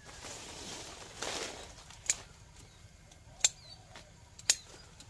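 Hand pruning shears cutting small side shoots on a young durian tree: a rustle of leaves and twigs, then three sharp snips about a second apart. Faint bird chirps in the background.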